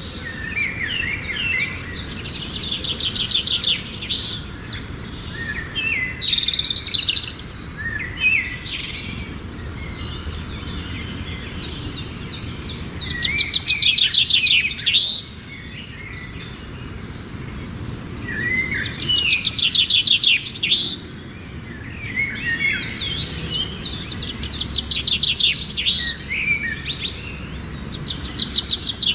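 Songbirds singing: high, fast trills and chirps in bouts of a few seconds with short pauses between them, over a steady low background rumble.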